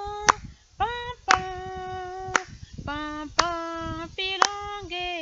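A woman singing unaccompanied in long held notes, clapping her hands about once a second to keep the beat.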